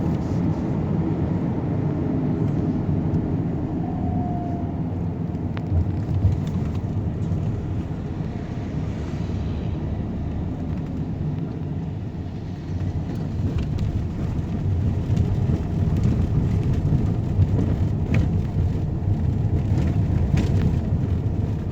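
Steady low rumble of road vehicles, with no music or speech over it.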